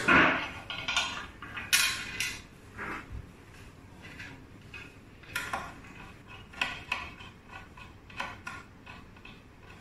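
Clinks, taps and scrapes of a screwdriver and small metal fittings on an anesthesia machine's table as a port is screwed into place, in scattered short bursts, louder in the first two seconds.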